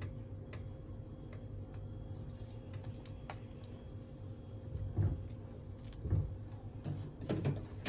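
Metal spoon and silicone spatula clicking and scraping against a nonstick frying pan while stirring a thick, sugary sweet fish sauce, over a low steady hum. There are louder knocks about five and six seconds in and a quick run of clicks near the end.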